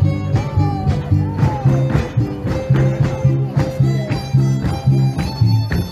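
A son huasteco played for dancing: a violin over strummed guitars, with a steady, driving dance rhythm.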